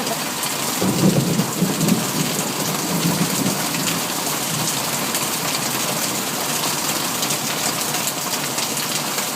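Heavy rain pouring down steadily during a thunderstorm. A low rumble of thunder swells about a second in and fades over the next few seconds.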